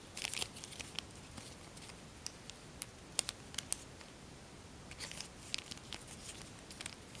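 Faint, scattered crinkling and crackling of a sheet of tissue foil (tissue paper laminated to aluminium foil) as fingers squeeze and press it closed into a reverse fold.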